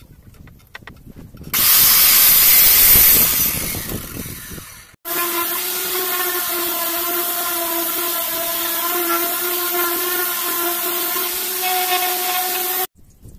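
A sliding compound miter saw cuts a wooden board, loud, and then its blade winds down. From about five seconds in, an electric random orbital sander runs steadily on wooden planks with an even whine, and it stops suddenly near the end.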